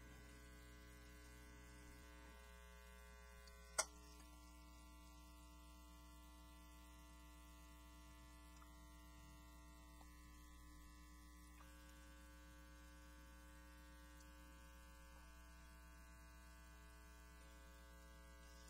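Near silence: a steady electrical hum, with a single short click about four seconds in.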